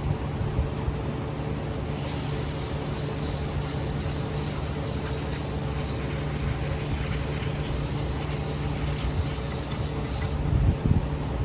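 Hissing spray blown through a carburetor's jet passages for about eight seconds, starting about two seconds in, over a steady low hum. A few knocks near the end.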